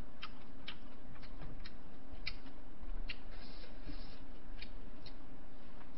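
Small, sharp clicks and ticks of someone eating at a table, about ten scattered irregularly, over a steady low background hum.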